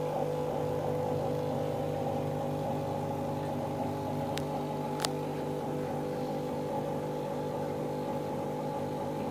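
Aquarium air pump humming steadily as it drives the bubble stream. Two sharp clicks come near the middle, a little under a second apart.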